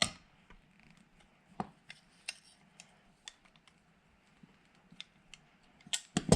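Small clicks and taps of quarter-window hinge parts being handled and lined up. There is a sharper knock at the very start, a few light taps, and a cluster of louder clicks near the end.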